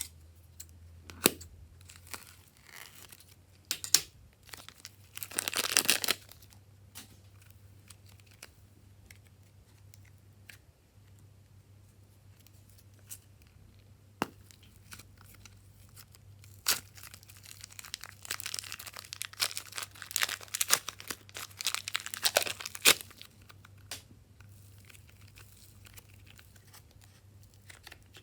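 Slime being stretched, pressed and pulled apart by hand, giving scattered sharp clicks and two longer stretches of crackling and tearing, the second running for about six seconds.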